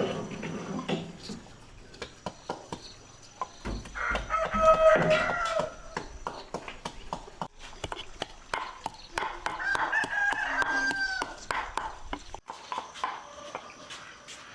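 Roosters crowing: two long crows, the louder about four seconds in and another near ten seconds that holds a steady pitch and then drops off. A run of sharp clicks sounds between and during the second crow.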